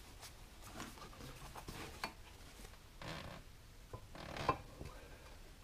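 Faint handling of heavy cast-iron parts: the cover of a Farmall Super M hydraulic Lift-All housing being set onto the housing and shifted into alignment. Light knocks and rubs of metal on metal, the loudest about four and a half seconds in.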